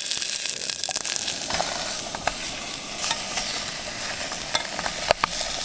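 Crumbled tofu sizzling in a little olive oil in a small camping pot on a canister stove, a steady hiss with a few sharp clicks as it is stirred.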